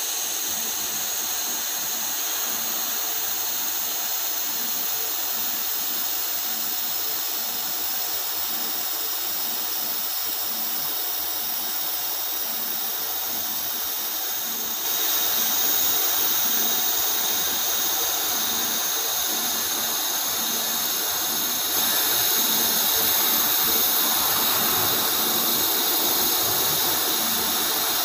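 TIG welding arc on carbon steel pipe, a steady high hiss that steps up louder about halfway through and again later on.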